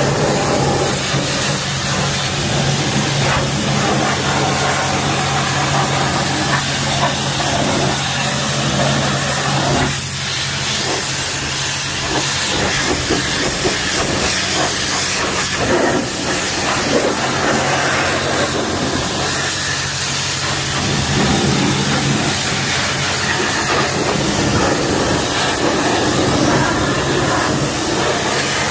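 High-pressure car-wash wand spraying water into an engine compartment: a steady hiss of spray spattering off the engine, with a constant low hum underneath.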